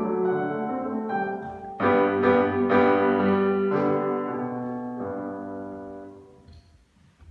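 Grand piano played solo. The piece closes with a few loud, heavy chords, and the last chord, struck about five seconds in, is left to ring and fade away.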